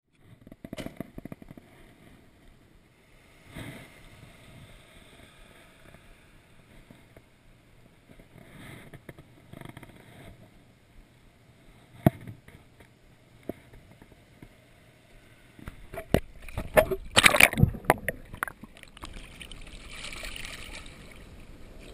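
Water lapping and sloshing, with a louder spell of splashing for a couple of seconds near the end.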